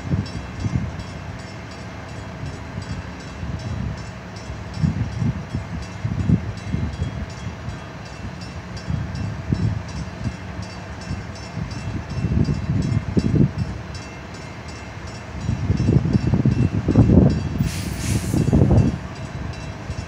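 Bascule drawbridge leaf being lowered: a low, uneven rumble that swells in surges, over a faint steady hum, with a brief hiss near the end.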